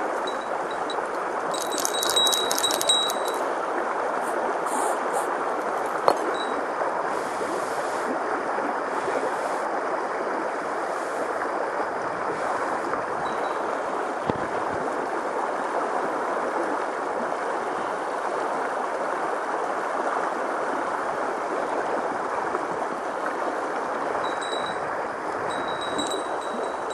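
Mountain stream rushing steadily, with a brief run of high, bell-like ringing about two seconds in and fainter ringing again near the end.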